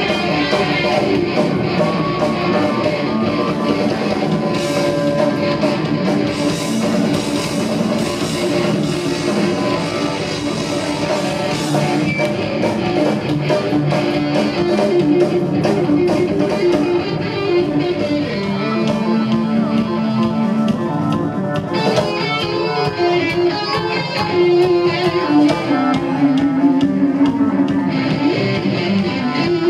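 A live rock band playing: electric guitar, electric bass and drum kit together in a heavy metal style.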